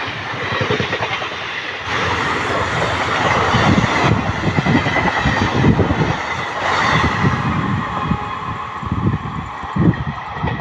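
Malda Town Express passenger train passing close by at speed: a loud rush of coaches with wheels clattering heavily on the rails. The rush fades in the second half as the last coaches go by, leaving uneven low thumps.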